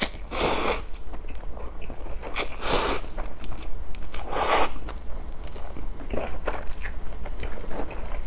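A person slurping instant cup ramen noodles, three long slurps in the first five seconds, then chewing with short wet mouth clicks.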